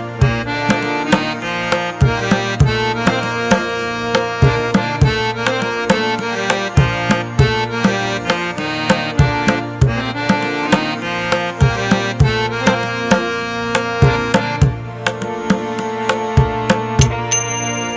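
Instrumental background music: a melody over a steady drum beat.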